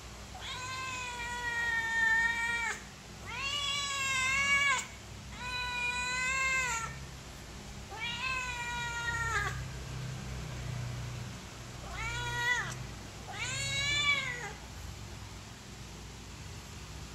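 Persian kitten meowing insistently to be fed: six long, drawn-out meows with short gaps between them, the last two shorter.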